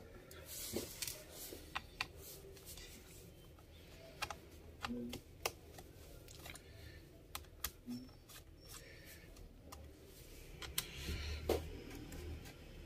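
Irregular small clicks and scrapes of a screwdriver undoing the small screws of a laptop's bottom cover, with a cluster of sharper clicks near the end.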